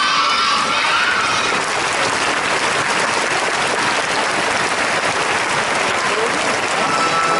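A large crowd of spectators applauding: a dense, steady wash of clapping that fills in after about a second and a half. Music starts right at the end.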